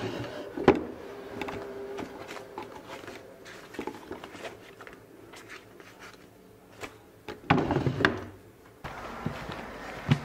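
A wooden desk drawer being handled and rummaged through: sharp knocks and scraping as it is worked, with small rustling and clicks of things moved inside, and a louder clatter about seven and a half seconds in.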